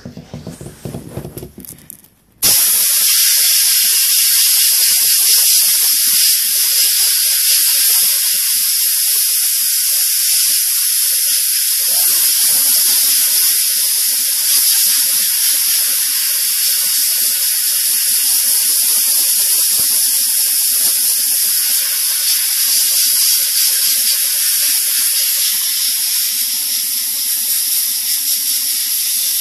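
Sandblasting cabinet's blast nozzle switched on about two seconds in, then a loud, steady hiss of compressed air and abrasive grit blasting a metal bracket. A faint low hum joins in about twelve seconds in.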